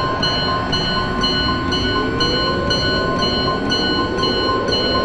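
Electronic soundtrack drone: a steady noisy rumble under a chime-like tone that pulses about two and a half times a second, with a slow rising sweep through the middle.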